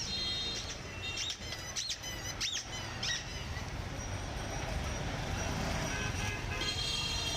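Street ambience: a steady low traffic rumble, with four high, arching squeaks about half a second apart in the first half and steady high electronic beeping tones near the start and again near the end.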